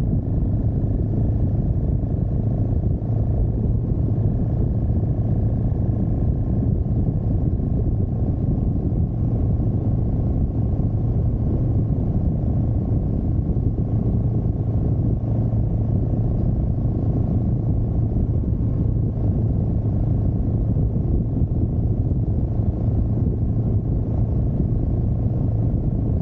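Motorcycle cruising at steady highway speed: a constant engine drone at one unchanging pitch under an even rush of wind and road noise.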